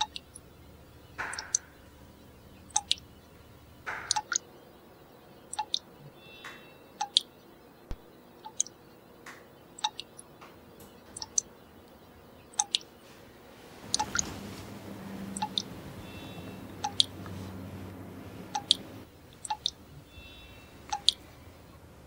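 A sharp, short tick repeating evenly about every one and a half seconds. A low rumble swells in a little past the middle and lasts about five seconds.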